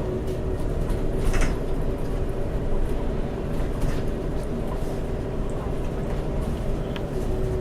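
Wright Pulsar 2 VDL DB300 single-decker bus in motion, heard from inside: a steady low rumble from the engine and drivetrain with a steady whine over it, plus light rattles and clicks. The whine is the strange noise this bus is known for; its cause is not known.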